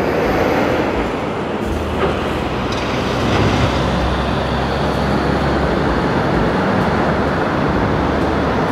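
Steady city road-traffic noise at a busy intersection, with a louder low rumble from about two to six seconds in.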